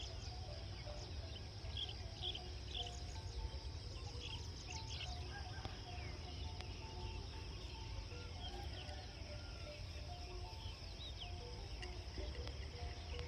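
Rural ambience: a steady high insect drone, with scattered short chirps and brief low tonal calls over a constant low rumble.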